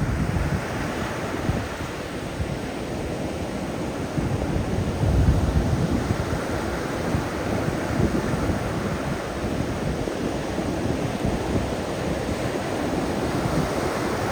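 Atlantic Ocean surf washing onto the beach in a steady rush, a little louder about five seconds in, with wind buffeting the microphone.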